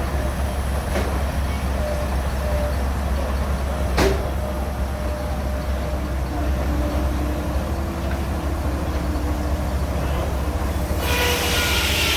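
Old circular sawmill running with a steady low rumble from its drive, a single sharp knock about four seconds in. Near the end a sudden, louder hissing noise with a steady whine sets in as the blade starts cutting into a log.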